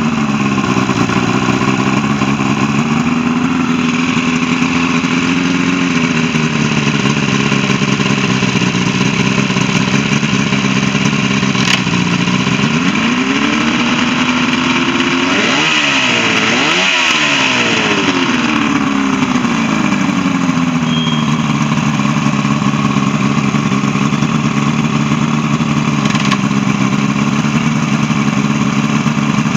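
Mariner 75 HP inline two-stroke outboard running on a garden-hose flush hookup out of the water, being test-run after a carburetor and fuel pump rebuild. It idles steadily, is revved up with a few quick throttle blips about halfway through, then drops back to idle and starts to rise again near the end.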